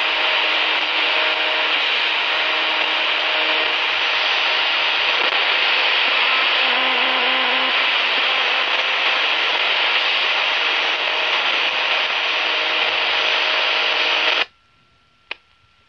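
Grundig Yacht Boy 215 radio's speaker giving loud, steady static hiss between stations as the tuning knob is turned, with faint steady tones under the hiss. The hiss cuts off suddenly near the end, followed by a single click.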